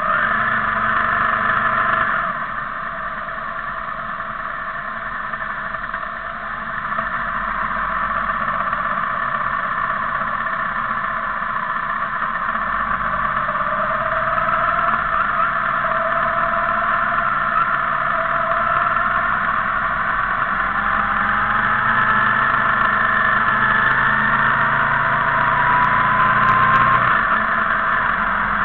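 Motorcycle engines running as a convoy of bikes rides along together, with the engine pitch rising slowly in the second half.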